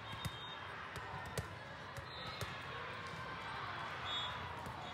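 Busy volleyball hall ambience: a steady din of many voices, with a few sharp thuds of volleyballs being struck and bouncing off the courts, the loudest about a second and a half in.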